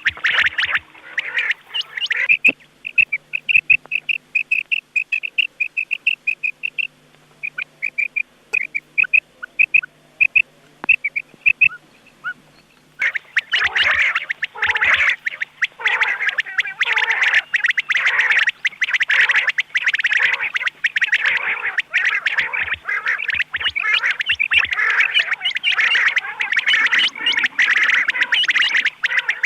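Recorded quail calls: a run of short, sharp calls repeated several times a second, then sparser calls, then from about halfway a dense chorus of many quail calling over one another.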